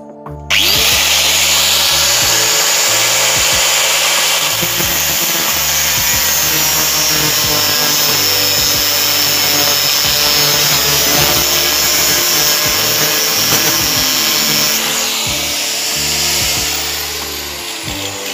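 Angle grinder cutting through the steel shank of a broken bit jammed in a rotary hammer's tool holder, so the holder can be removed. The grinding starts suddenly about half a second in, carries a high whine through the middle, and eases off near the end.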